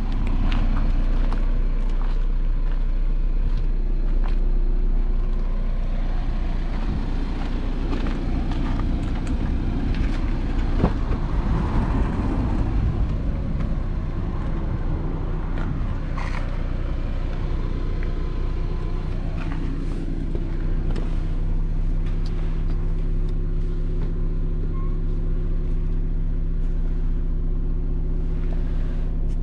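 Audi A6's 2.0 TDI four-cylinder diesel engine idling steadily, with a few light knocks scattered through it.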